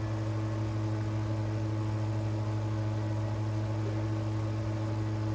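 Steady low electrical hum with a few fainter higher tones above it, unchanging throughout.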